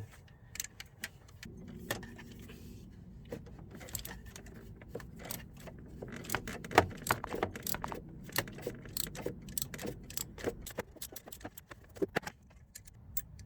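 Irregular metallic clicking and clinking of a 13 mm spanner or ratchet working a nut loose on the gearbox's gear selector, many sharp ticks, thickest in the second half.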